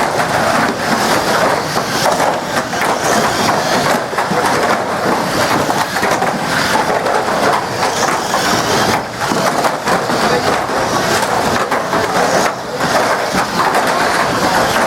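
Banger-racing cars crashing and grinding together: a continuous loud crunching and scraping of metal bodywork, with frequent knocks.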